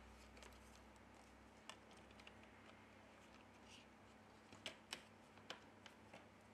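Faint small clicks and taps of fingers pressing internal parts of a Xiaomi Mi Note 10 into place on its frame, over near-silent room tone. A quick pair of louder clicks comes about two-thirds of the way through.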